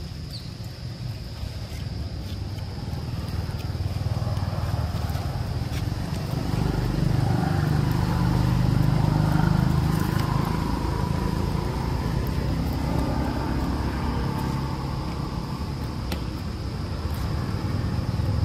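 A motor vehicle's engine running, growing louder to a peak about halfway through and then easing off, with a steady high insect buzz.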